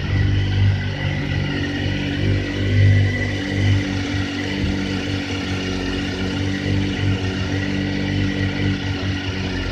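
Triumph Daytona 955i's fuel-injected 955 cc inline three-cylinder engine idling after a cold start, a steady running note with a few brief swells in level in the first four seconds.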